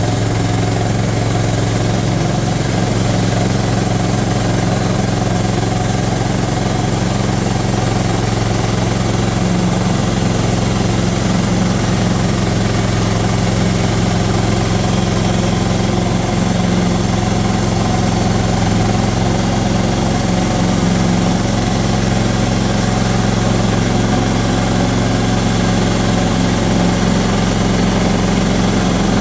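Sawmill's engine running steadily at an even pitch, with no change in speed.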